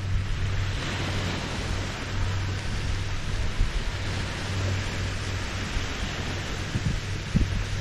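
Small Lake Huron waves lapping and washing on the shoreline, a steady rushing hiss with a constant low rumble underneath.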